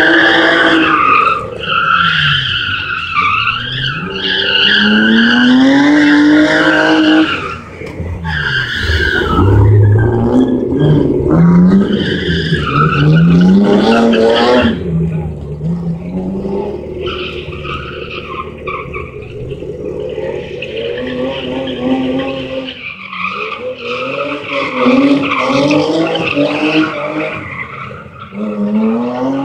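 Competition car engine being driven hard through a slalom course, revving up and dropping back again and again, with tyre skidding. A brief low rumble comes about nine seconds in.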